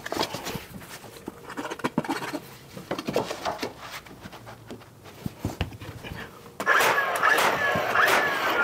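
Scattered light knocks and taps of wood being handled, then, near the end, a cordless drill starts up and runs continuously, driving a screw into a 2x4 wooden stud.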